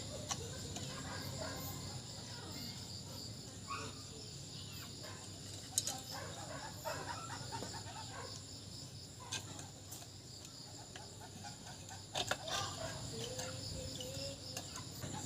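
Quiet outdoor background with chickens clucking and calling now and then, and a few sharp clicks or knocks.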